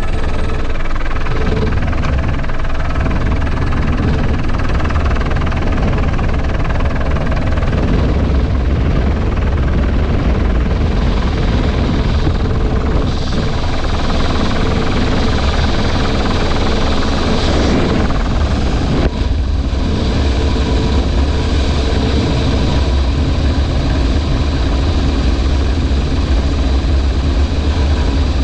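Helicopter engine and rotor running steadily, a loud low hum with a steady drone over it, with a brief dip in level about two-thirds of the way through.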